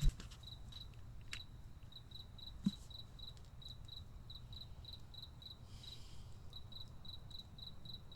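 A cricket chirping on one high note at an even rhythm, about two to three chirps a second. There is a soft low thump right at the start and another a little under three seconds in.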